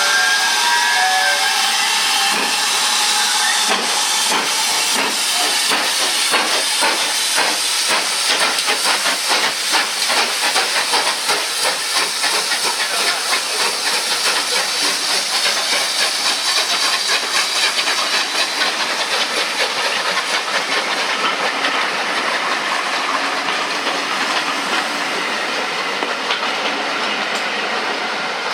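GWR Large Prairie 2-6-2T steam tank locomotive 5199 working past: a steady loud hiss of steam with a quick, even beat of exhaust chuffs that builds after a few seconds and eases off near the end.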